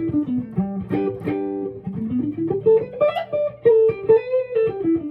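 Guitar playing the second pentatonic scale shape (form 2) one note at a time: the notes step down, climb back up, and step down again.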